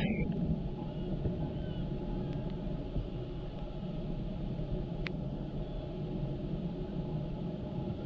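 Steady low outdoor rumble with a faint single click about five seconds in.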